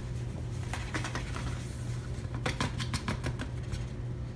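Sliced peaches sliding off a plate and dropping into a saucepan: a run of soft, wet pats and light taps, thickest a little past the middle, over a steady low hum.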